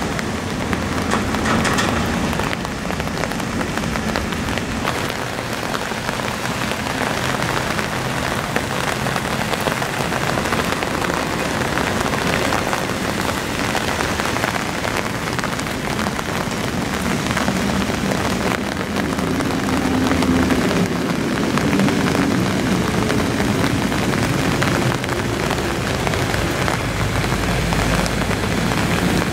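Steady heavy rain, an even hiss throughout. A low drone of ship engines runs underneath and grows louder about two-thirds of the way through.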